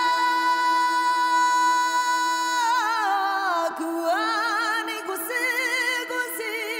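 A woman's voice singing a wordless vocal line. She slides up into a long, high held note, then breaks into wavering, falling phrases with heavy vibrato, over a steady low held tone.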